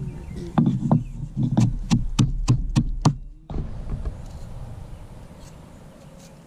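A rapid run of sharp knocks, about three a second and quickening, that stops suddenly about three and a half seconds in.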